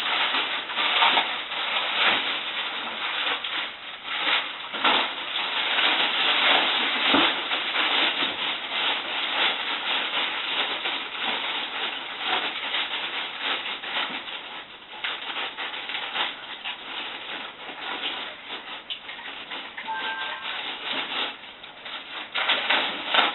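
Packaging on a hookah being worked at by hand: continuous rustling and crinkling, full of small crackles, as it is pulled and wrestled open.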